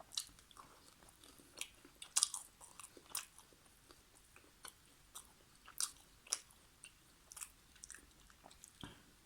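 Close-up eating sounds: chewing chicken karahi and naan with wet mouth clicks and smacks at an irregular pace, a few louder ones standing out.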